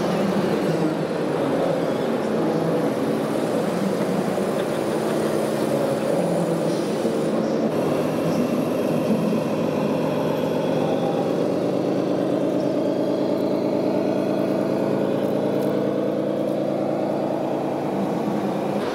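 Simulated diesel truck engine sound from a radio-controlled Scania model truck's sound module, running steadily, its pitch rising a little in the last few seconds.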